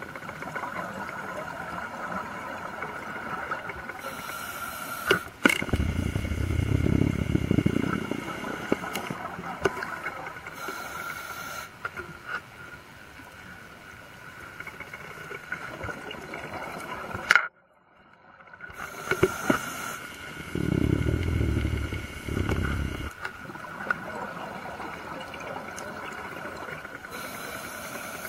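Underwater sound of a scuba diver breathing through a regulator: short hissing inhales and, twice, a long low bubbling exhale lasting a couple of seconds. A steady high whine runs underneath, and the sound cuts out for about a second past the middle.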